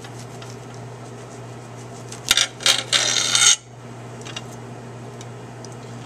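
Dragon fruit skin being peeled off by hand: a short scratchy tearing rasp about two seconds in, a few quick strokes and then a longer pull lasting about a second. A steady low hum runs underneath.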